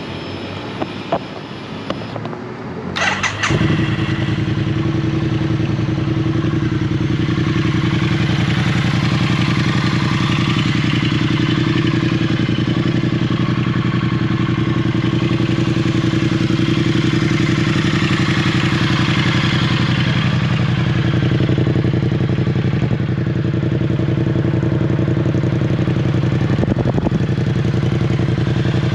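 Triumph Street Twin's 900 cc parallel-twin engine starting: a few clicks, then a brief crank about three seconds in as it fires. It settles into a steady idle that holds for the rest of the time.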